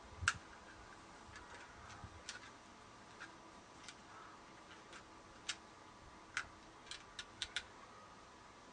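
Scattered light clicks and taps of fingers handling coaxial cable and the aerial's plastic terminal box, the sharpest just after the start and a quick run of them about seven seconds in.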